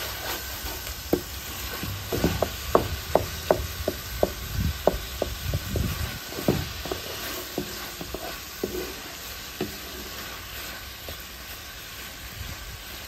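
Beef, onion and vegetables frying in a pot with a steady sizzle. A spoon knocks and scrapes against the pot as the food is stirred, with the strokes coming thickest in the first half.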